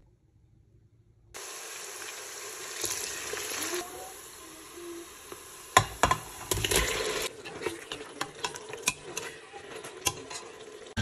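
Chopped onion sizzling in oil in a steel pot, starting about a second in. About six seconds in, raw lamb pieces are tipped in from a steel bowl with a couple of loud knocks, then a spoon clicks and scrapes against the pot as the meat is stirred.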